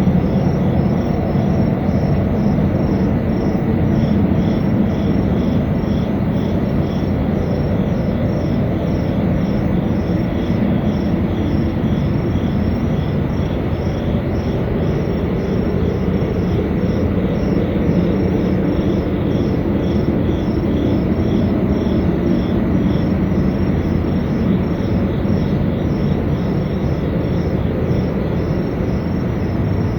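A steady, loud, low rumbling drone of unexplained origin, the mystery noise reported by residents. Above it, insects chirp in rapid, regular pulses.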